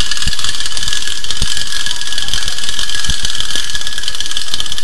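Wound-up clockwork motor of a Kovap tinplate ladybird toy whirring steadily as the toy runs along a tabletop, with a few low thumps.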